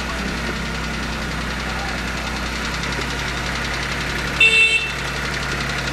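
International farm tractor engine running steadily as the tractor approaches. About four and a half seconds in, a short, sharp high-pitched sound is briefly louder than the engine.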